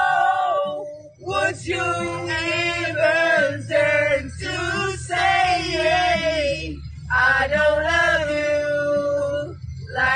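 A group of young men singing loudly together karaoke-style, with long held notes broken by short pauses for breath.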